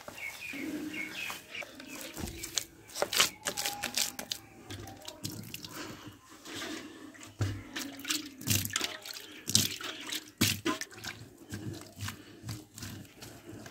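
Wet mud mixed with chopped straw squelching as bare hands knead it in a metal basin, then handfuls of wet mud slapped and pressed into a clay pit, with irregular wet smacks and squelches.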